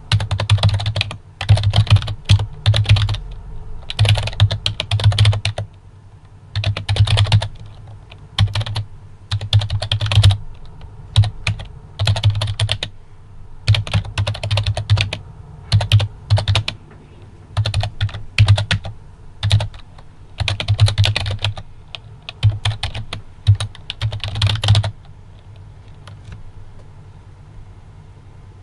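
Typing on a PFU Happy Hacking Keyboard Lite 2, a membrane keyboard: bursts of rapid key presses with short pauses between them, stopping about 25 seconds in.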